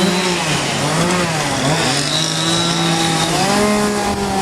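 Two-stroke chainsaws running at a carving show, their engine pitch rising and falling as the carvers throttle up and ease off while cutting wood.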